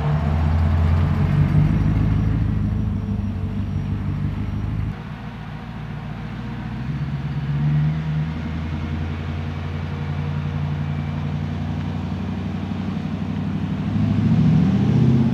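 A supercharged 6.2-litre Chevrolet LSA V8 in a Land Rover Defender 110 runs as the vehicle drives by. The engine note drops suddenly about five seconds in, then swells again twice, the second time near the end.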